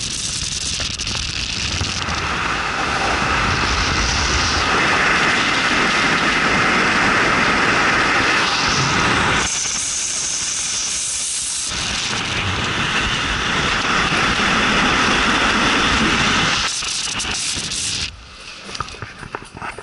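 Steady rush of wind over the microphone with tyre and road noise from a car driving at speed, filmed from outside the side window; it drops sharply to a quieter level near the end.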